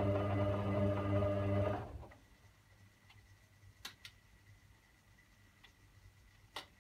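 Hotpoint Aquarius WD62X washing machine's drum motor running with a steady hum as the drum tumbles the wash load, then stopping about two seconds in for a tumble pause. A few faint clicks sound during the pause.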